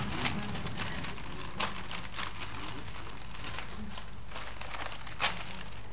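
Gift-wrapping paper rustling and crinkling as presents are handled and opened, with sharper crackles about a second and a half in and near the end.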